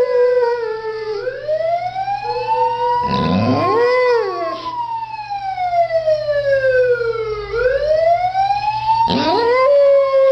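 A siren wailing, its pitch sweeping slowly up and down. A dog howls along with it twice, once about three seconds in and again near the end.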